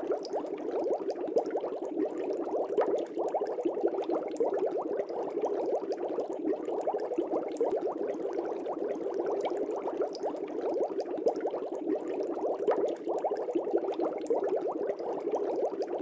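Air bubbles streaming up through aquarium water: a steady, dense bubbling with many small pops.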